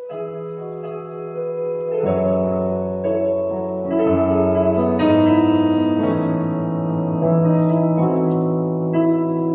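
Electronic keyboard playing slow held chords, with a bass line coming in about two seconds in.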